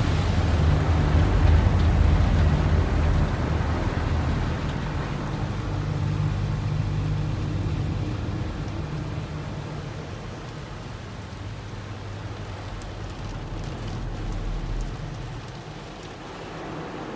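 Automatic car wash heard from inside the car: water spray and foam drumming on the windshield and roof over a steady low hum. Loudest in the first few seconds, then it slowly dies down to a quieter wash.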